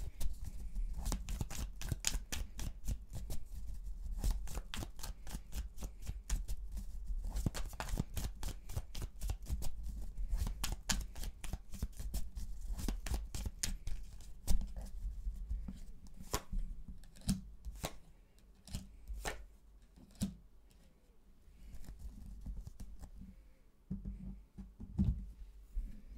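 A deck of tarot cards being shuffled overhand by hand: a rapid stream of card clicks for about fifteen seconds, then slower, sparser strokes that stop near the end.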